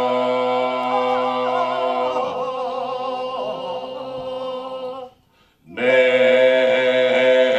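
Gospel vocal group singing a cappella in close harmony: a held chord with a solo voice running over it, a short break about five seconds in, then the group comes back in on a full sustained chord.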